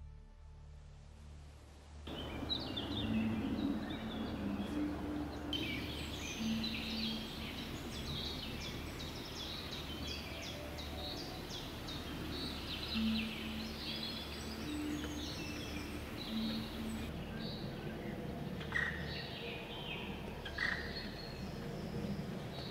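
Woodland birdsong: many small birds chirping and calling in quick, overlapping phrases over a steady low hum, after soft music fades out in the first two seconds.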